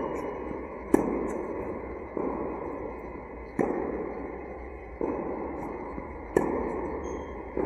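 A tennis rally in an indoor tennis hall. The near player's racket strikes the ball with three sharp cracks about two and a half seconds apart. Quieter echoing hits come in between, and each one rings on in the hall's reverberation.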